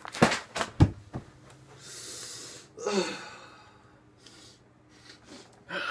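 A quick run of knocks and thumps in the first second as things are handled close to the microphone, then a breathy hiss and a short throaty vocal noise, with another brief vocal sound near the end.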